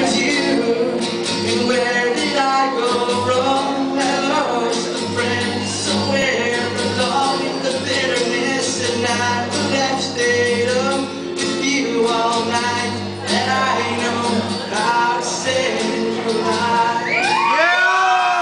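A man singing to a strummed acoustic guitar. Near the end a high shout or whoop from another person joins in.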